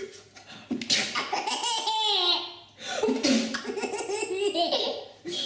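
A baby laughing hard in two long bouts, the first starting about a second in and the second just after the middle.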